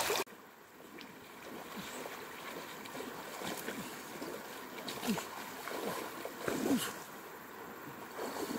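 A short loud splash of river water right at the start, then faint river water sloshing around a person wading through the shallows, with a few short faint calls now and then.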